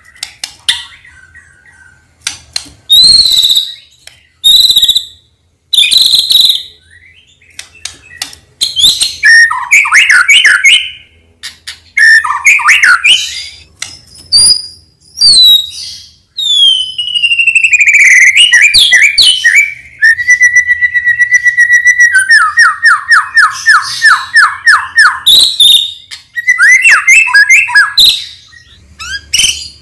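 White-rumped shama (murai batu, Medan type) in full song. It gives bursts of clear whistles, warbled gliding phrases and trills, separated by short pauses. Past the midpoint come a held note and then a quick run of repeated notes, about four a second, for a few seconds.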